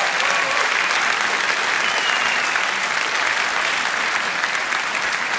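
Large arena crowd applauding steadily, a dense wash of clapping.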